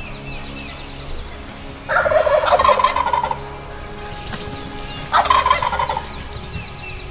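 Wild turkey gobbler gobbling twice, about two seconds in and again about five seconds in, with smaller birds trilling in the background.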